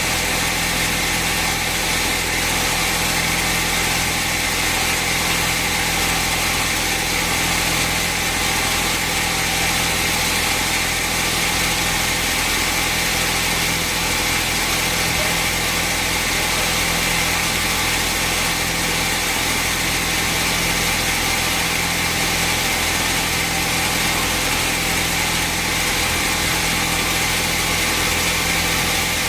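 Sawmill machinery running steadily, a constant engine-driven drone with no change in pitch or level.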